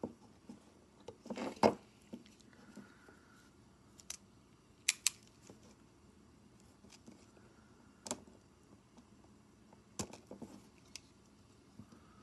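Scattered sharp clicks and light knocks of small parts and tools being handled while a car power window switch is taken apart, loudest about a second and a half in, with a quick double click near the middle.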